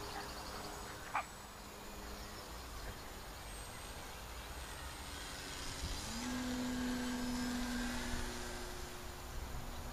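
Electric RC plane's brushless outrunner motor and propeller humming in flight as a steady tone. About six seconds in the pitch steps up and it gets louder. A brief sharp sound comes about a second in.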